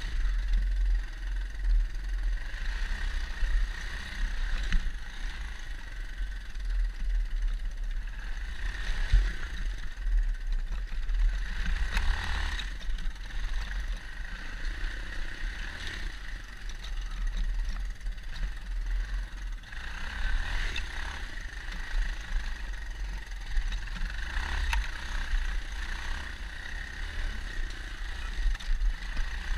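Dirt bike engine running as it is ridden along a loose-dirt trail, its note rising and falling every few seconds with the throttle. Heard through a helmet-mounted camera, with a heavy low rumble of wind on the microphone.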